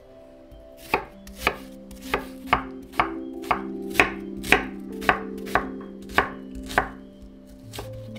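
Chef's knife dicing a peeled onion on an end-grain wooden cutting board: about a dozen sharp chops, roughly two a second, each cut ending with the blade knocking the board.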